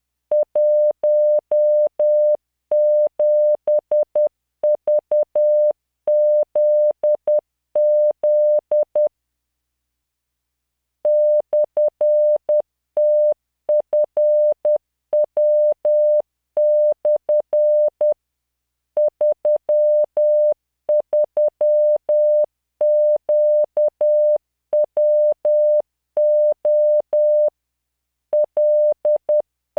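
Morse code sent as a computer-generated 600 Hz tone at 10 words per minute, keyed in dots and dashes that spell out random five-character practice groups of letters, numbers and punctuation. A pause of about two seconds falls around a third of the way in.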